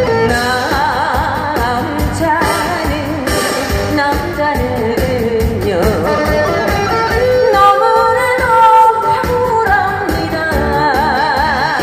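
A woman singing a Korean song into a microphone over instrumental accompaniment, her held notes wavering with vibrato.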